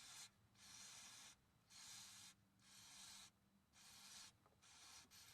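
Aerosol can of CRC QD electronic cleaner hissing in a series of short sprays, about one a second, into the pin holes of a wiring connector to flush out old dielectric grease.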